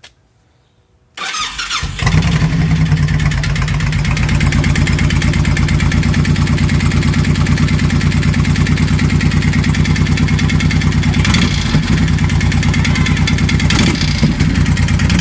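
2004 Honda VTX 1800's V-twin engine started from cold: the starter cranks about a second in, the engine catches and settles into a steady, evenly pulsing idle. The cold-start idle carries the knocking sound the owner is asking about.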